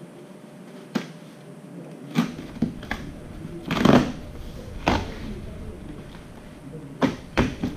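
Cardboard boxes and packaging being handled: a scattering of sharp taps and knocks, with a louder, longer rustle or scrape about four seconds in.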